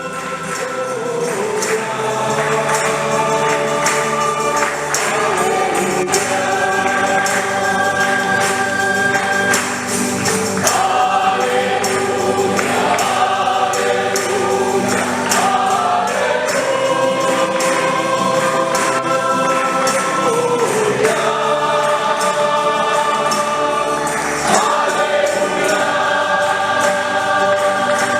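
A choir singing a hymn in sustained, held phrases, accompanied by a shaken tambourine.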